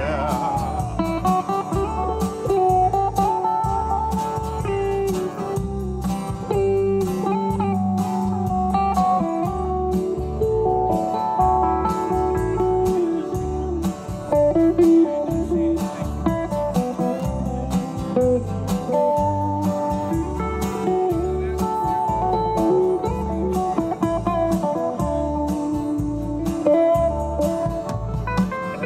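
Live band playing an instrumental break: a lead guitar picks out a melody, with a gliding note at the start, over a pulsing bass line and a steady drum beat.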